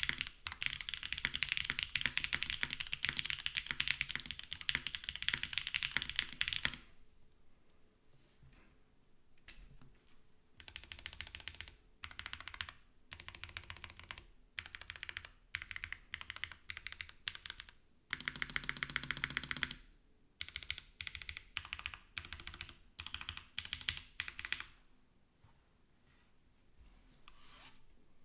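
Typing on a custom mechanical keyboard with Clackbits low-travel switches on a nylon plate, in a smoked polycarbonate case with an O-ring mount. Fast, continuous clacking for about the first seven seconds, then shorter bursts of keystrokes with pauses, a dense burst again past the middle, and the typing trails off a few seconds before the end.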